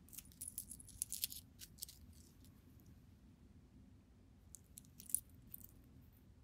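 Metal ball-chain necklace with a round pendant clinking and jingling faintly as it is handled in the hand, a flurry of light clicks in the first two seconds and a second short flurry about five seconds in.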